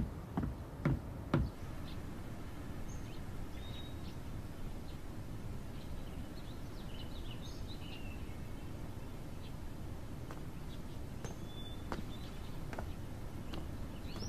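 Outdoor garden ambience: small birds chirping now and then over a steady low background rumble. Three footsteps on wooden stairs, about half a second apart, in the first second and a half.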